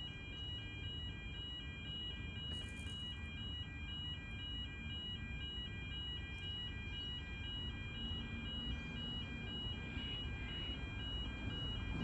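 Electronic warning beeper sounding a pulsing high tone about twice a second, over a low background rumble.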